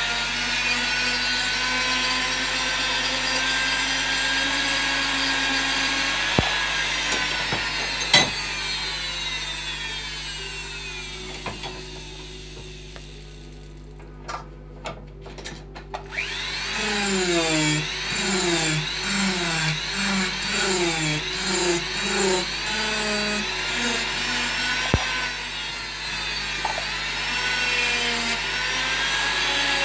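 Corded hand-held power carving tool grinding bulk off a wooden carving. Its motor runs, winds down to a stop before the middle, and a few light taps follow. It starts again a little after halfway, its pitch wavering up and down as it cuts into the wood.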